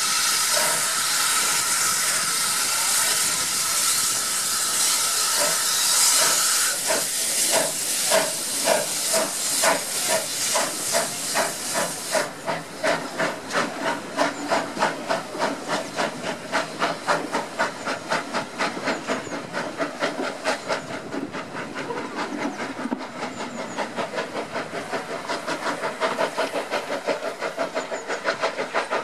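Steam locomotive pulling away with a train: at first a loud, steady hiss of escaping steam, then about seven seconds in the exhaust beats begin, roughly two a second. The hiss cuts off suddenly about twelve seconds in, and the chuffing carries on steadily.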